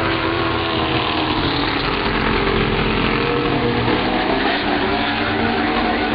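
Street stock race cars' engines running together as the pack laps the oval, a steady loud blend of several engines at once.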